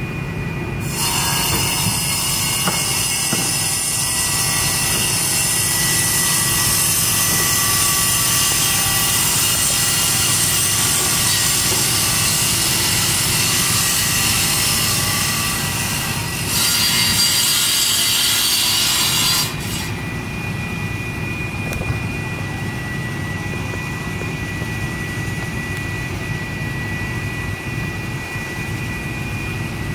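Construction-site power saw cutting: a long, steady, high-pitched rasping noise that starts about a second in and stops abruptly around 19 seconds, over a steady low hum.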